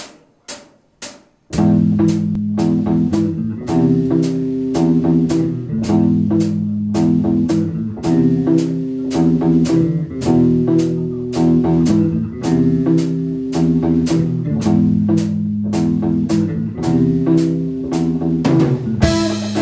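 Live rock band of electric guitar, bass guitar and drum kit. Three sharp clicks about half a second apart, then about a second and a half in the whole band comes in together, playing chords over a steady beat of about two strokes a second.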